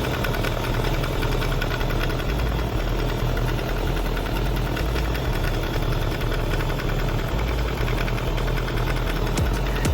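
Kawasaki ZRX1200R's air-cooled inline-four engine idling steadily.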